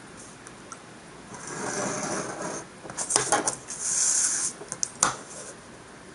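A paper sheet sliding and rustling as it is turned on a desk, with light metallic clinks and taps of a steel ruler being lifted and set back down; the sharpest click comes about five seconds in.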